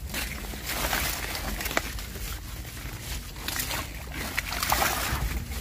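Water sloshing and swishing with rustling leaves as a bamboo eel trap is handled among water plants, in repeated swishes, with one sharp click a little under two seconds in.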